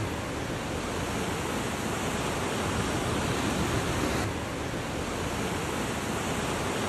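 Torrential rain pouring down in a steady, even rush.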